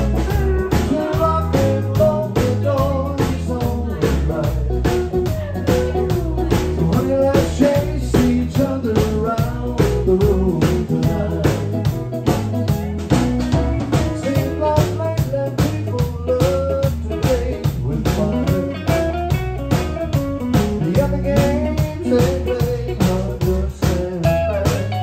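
Live country band playing: a fiddle carries the melody over electric bass, electric guitar and a drum kit keeping a steady beat.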